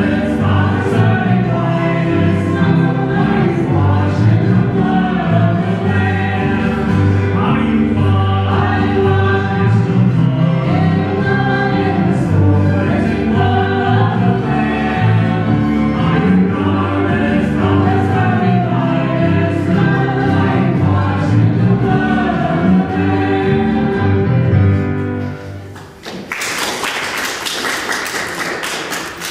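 Church worship band playing a song: several voices singing over electric guitars, bass and drums. The song ends about 25 seconds in, followed by a few seconds of applause.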